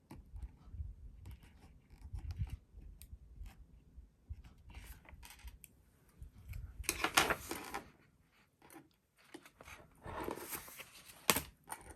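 Paper and a sticker sheet being handled: light rustling and small ticks, two louder crinkling swishes a little past the middle and again near the end, and a sharp click just before the end.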